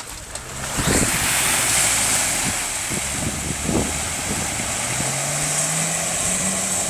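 Suzuki Jimny's 1.3-litre four-cylinder engine working under load as the 4x4 ploughs through deep mud and water, with loud splashing starting about a second in. The engine revs rise near the end.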